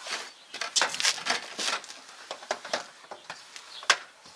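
Irregular light clicks and taps of hands working a metal door-reveal trim strip against the door frame as it is test-fitted, with one sharper click about four seconds in.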